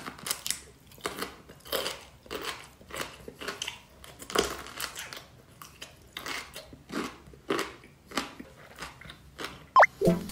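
A person biting into and chewing a soft yellow food close to the microphone: a steady run of wet chewing noises about twice a second. Just before the end a short rising whistle-like sound effect.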